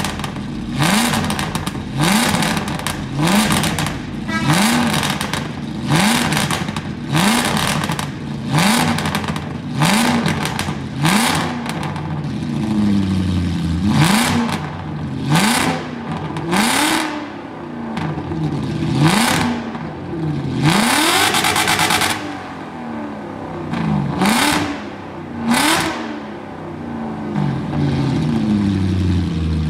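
A tuned car engine revved over and over, roughly once a second, the pitch rising each time, with bursts of exhaust pops and crackles as it comes off each rev.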